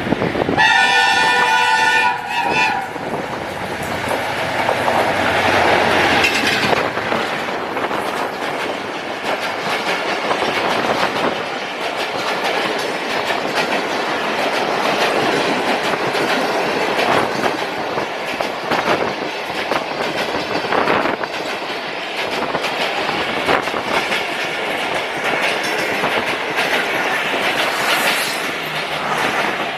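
A Pakistan Railways train sounds its horn once for about two seconds, a chord of several steady tones, then rolls past with a continuous rumble and the clickety-clack of its wheels over the rail joints.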